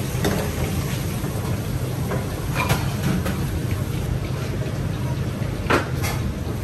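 Steady low mechanical hum with a few light clicks and knocks.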